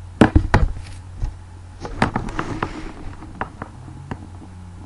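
Irregular sharp knocks and thumps, loudest and closest together in the first second, thinning to scattered clicks by about four seconds in, over a steady low hum.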